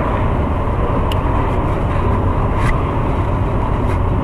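Wind buffeting the camera microphone: a steady low rumble, with a few faint clicks over it.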